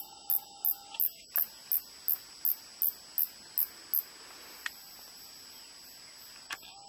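Insect chirping: a regular run of very high, short chirps, about three a second, that stops about four seconds in, over a steady high-pitched hum.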